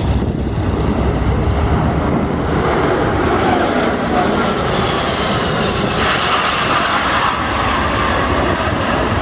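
Boeing C-17 Globemaster III's four Pratt & Whitney F117 turbofan engines making a low pass: a loud jet roar that swells about two seconds in and is fullest near the middle, with a faint whine that falls slightly in pitch.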